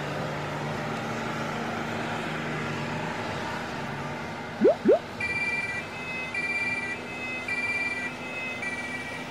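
Steady vehicle engine drone, then two quick rising whoops (the loudest sounds) about four and a half seconds in, followed by an ambulance's two-tone siren alternating between a high and a low note about every half second.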